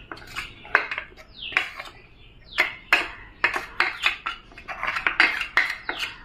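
A spoon scraping and knocking inside a mixer-grinder jar as blended rice flour and papaya is emptied into a bowl: a quick, irregular run of clinks and scrapes.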